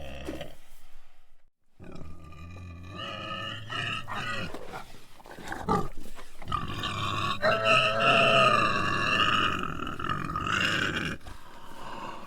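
An animal squealing in long, wavering pitched cries, broken by a short silence about a second in. The calls are loudest and strongest over the second half, then drop away near the end.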